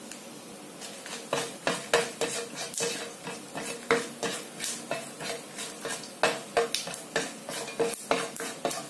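A spatula stirring and scraping a frying pan of hot oil with dried red chillies, cumin seeds, cinnamon and cloves tempering in it. A light sizzle is heard under quick, irregular scrapes and taps against the pan, which start about a second in.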